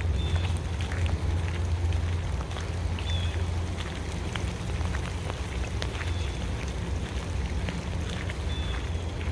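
Rain falling in woodland, with many scattered raindrop ticks over a steady low rumble. A short high chirp repeats about every three seconds.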